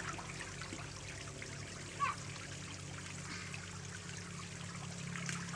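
Water jets of a hose-fed sprinkler splash mat spraying and pattering steadily, with a child's brief call about two seconds in.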